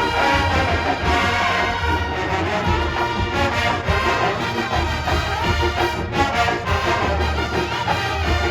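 College marching band playing a halftime show: full brass section with trumpets and trombones over low brass and drums, loud and continuous.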